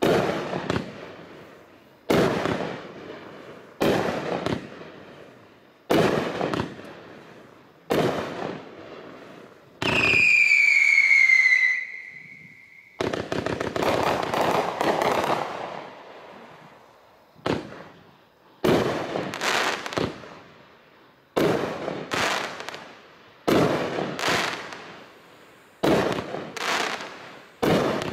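44-shot 500-gram consumer firework cake firing its breaks and go-getters. Its shots bang about every two seconds, each sharp report dying away. About ten seconds in, a loud whistle dropping slightly in pitch lasts about three seconds, then a few seconds of rapid crackling pops, before the regular bangs resume.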